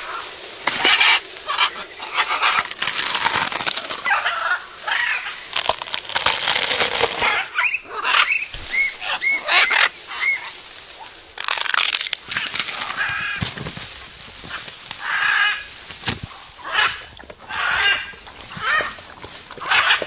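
Macaws giving repeated harsh, raspy squawks, with a few shorter clear arched notes about halfway through.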